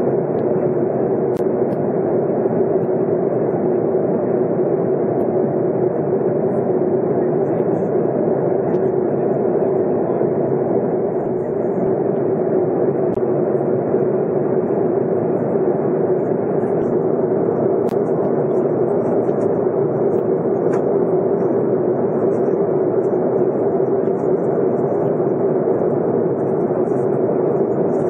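Airliner cabin noise in cruise flight: the jet engines and rushing air heard from a window seat as a loud, even rumble with a steady hum running through it.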